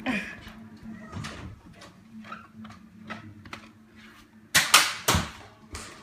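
A knock as a phone is set down on a hardwood floor, then scattered faint knocks and clicks. About four and a half seconds in come a few loud, short bursts of noise.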